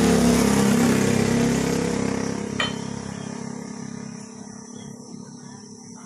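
A motor vehicle's engine running close by, loudest at the start and then fading away over several seconds as it moves off. A single sharp click a little over two and a half seconds in.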